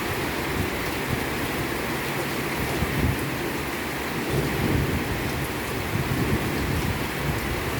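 Heavy rain falling steadily, with a low rumble underneath that swells a couple of times.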